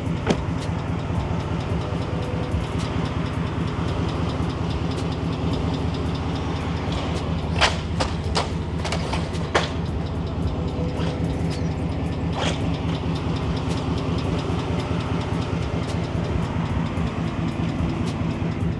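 Pickup truck engine idling steadily, with a fast even pulse, and a few sharp clicks around the middle.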